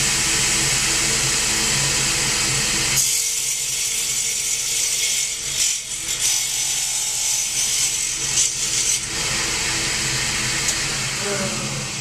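Table saw running steadily: a motor hum under the whir of the spinning blade, the low hum dropping away about three seconds in.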